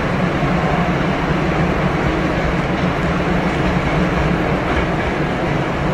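Hankyu 8000 series electric train running slowly, heard from inside the front car: a steady running rumble with a low hum underneath.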